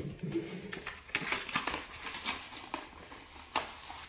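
Paper inserts rustling and a cardboard phone box being handled, in scattered short rustles and light taps.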